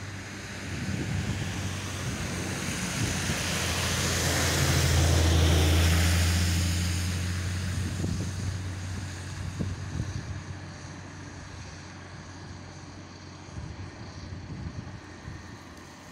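ChME3 diesel shunting locomotive running under load: a low engine drone that swells to its loudest about five seconds in and then fades. A broad rushing hiss swells and dies away with it.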